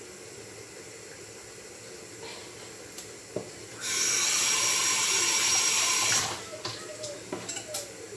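A water tap running for about two and a half seconds, starting about four seconds in and cutting off sharply, followed by a few light clicks and knocks.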